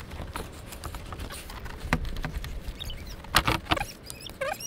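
A car battery being set down into its tray under the hood, with several hard clunks and knocks of the battery case and plastic terminal cover being fitted. A few short, wavering high squeaks sound around three seconds in and again near the end.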